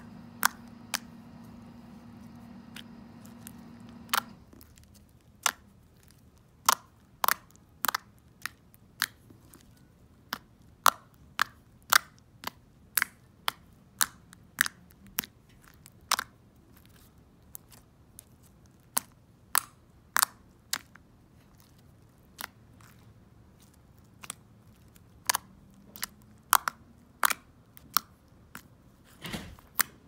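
Clicky slime pressed and poked by fingers, giving dozens of sharp clicking pops at an irregular pace of about one or two a second. A steady low hum underneath stops abruptly about four seconds in.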